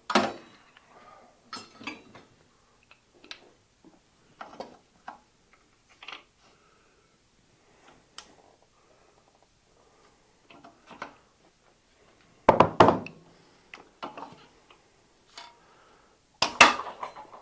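Metal tools clinking and knocking against a bike frame while a plastic press-fit bottom bracket cup is worked out of its shell. There is a sharp strike at the start, scattered lighter taps, and two bursts of harder strikes, one past the middle and one near the end.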